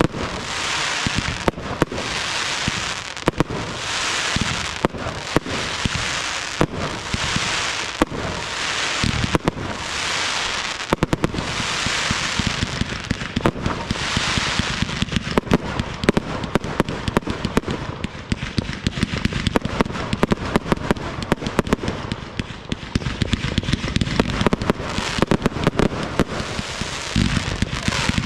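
Fireworks display close to the firing line. Comets launch with repeated hissing surges about a second apart, among sharp bangs and crackle from bursting shells. About halfway through the firing grows denser, with more deep bangs and rumble.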